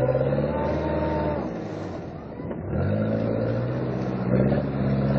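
Off-road pickup truck's engine revving hard under load as it drives through deep mud, easing off for about a second near the middle, then revving up again and holding.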